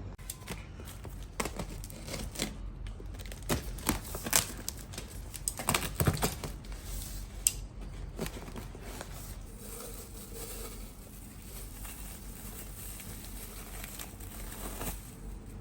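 Packaging material being handled: crinkling and rustling with scattered sharp clicks and taps, busiest in the first half and quieter after.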